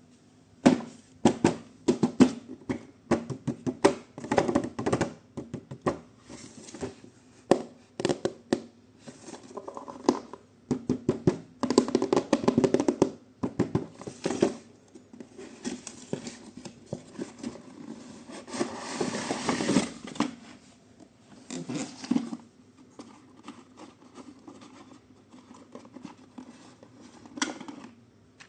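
Hands handling a toy box and its packaging: irregular taps, knocks and scratching, with a longer rustling scrape about nineteen seconds in.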